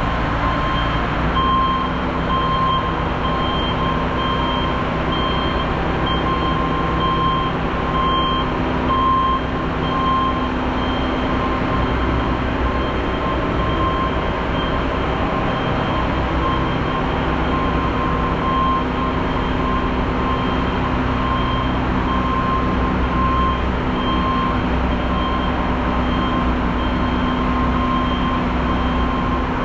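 Truck reverse-alarm beeping in a steady repeating pulse over a truck engine running, as the truck backs slowly.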